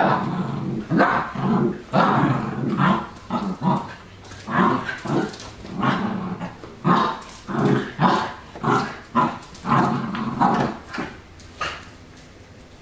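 Italian Greyhounds growling and barking in play, short loud calls following one after another, stopping near the end.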